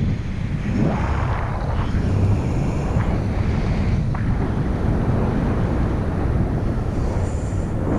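Airflow buffeting the microphone of a paraglider in flight: a steady low rumble of wind noise that swells now and then as the wing turns.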